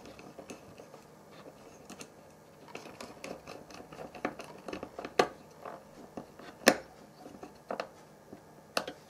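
Scattered small clicks and scratches of a wire lead being handled and pushed into a screw terminal block on a circuit board. The sharpest clicks come about five and seven seconds in.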